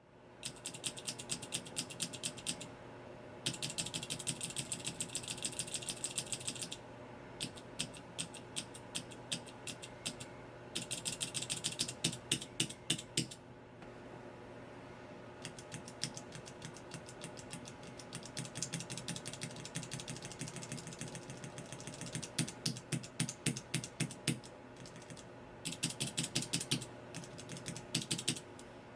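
Cherry MX mechanical key switches on a switch tester being pressed over and over in quick runs of clicks with short pauses between runs. Some runs are sharper and brighter than others.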